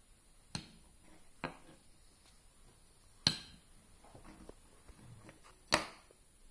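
Laminated wooden domino tiles knocking together as a child stacks them on a table: four sharp clacks, the loudest about three seconds in and near the end, with softer little knocks between.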